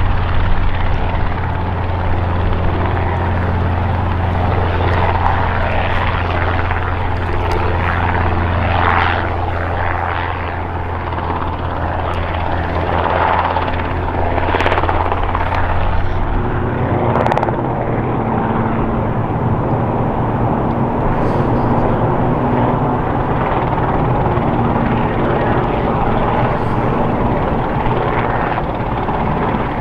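Robinson R22 Beta II helicopter, its two-blade main rotor and four-cylinder Lycoming piston engine running as it hovers low and then flies higher. The steady low drone shifts in pitch a little past halfway.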